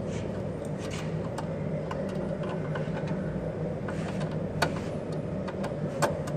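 Scattered small clicks and taps of wires being connected to a fire alarm panel's power terminals, with two sharper clicks about 4.5 and 6 seconds in, over a steady low hum.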